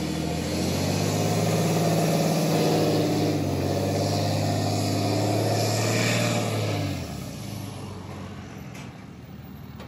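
Pickup truck's engine running steadily as it pulls a gooseneck trailer loaded with two trucks slowly past. The engine sound drops away sharply about seven seconds in.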